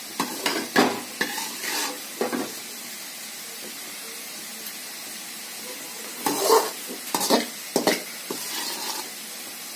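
A spatula scraping and knocking against a pan while the cooked brinjal and gram-flour sabzi is stirred and scooped out. The scrapes and knocks come in two short clusters, one at the start and one about six seconds in.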